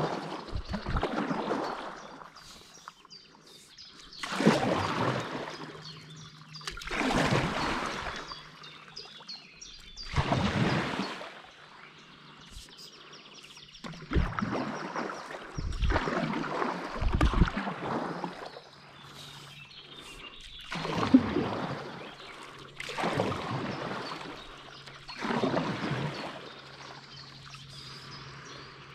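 Stand-up paddle board paddle dipping and pulling through river water, a splashing stroke every two to four seconds, about nine strokes in all.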